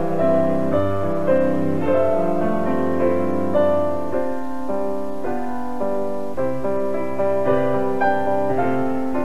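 Background instrumental music: a melody of held notes over sustained low notes.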